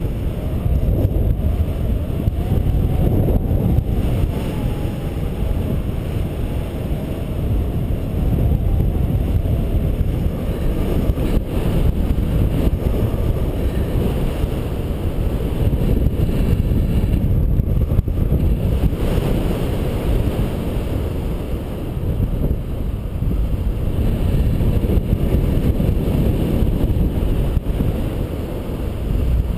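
Airflow buffeting the microphone of a paraglider's harness-mounted camera in flight: a loud, steady, low wind rumble.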